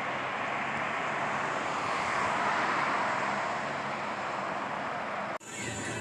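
Steady road noise from passing traffic, swelling about halfway through as a vehicle goes by, then cut off suddenly near the end and replaced by a different steady background.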